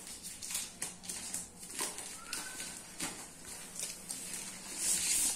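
Plastic packaging film being handled: light crinkling and small clicks, with a louder crinkle near the end.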